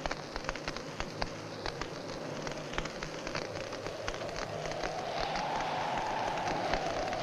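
Steady crackling hiss full of scattered sharp clicks, with a hum-like sound that swells about five seconds in.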